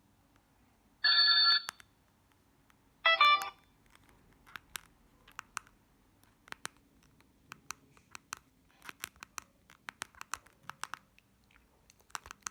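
Doro 1360 mobile phone playing two short ringtone previews, about a second and three seconds in, each cut off after about half a second. These are followed by a string of irregular light clicks from its keys being pressed.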